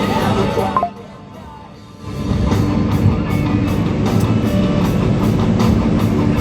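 Rock music with guitar and drums. It drops to a quiet passage about a second in, then the full band comes back in with a steady beat.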